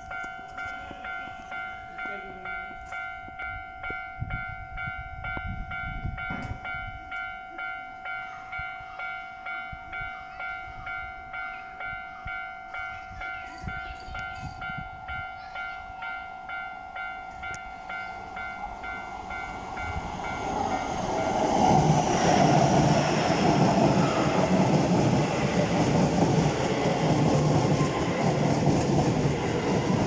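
Japanese level-crossing warning bell ringing, its electronic tone striking in a steady, regular rhythm. About twenty seconds in, a Keisei 3000-series electric train arrives and runs past, and its loud wheel and running noise drowns out the bell.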